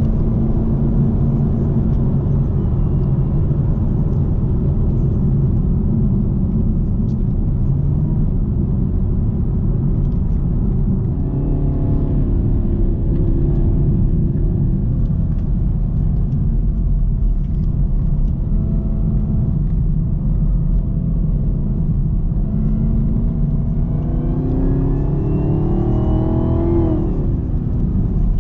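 2018 Camaro ZL1's supercharged 6.2-litre V8 running steadily under way. Near the end it revs up, with the supercharger's whine rising along with it, then drops off suddenly.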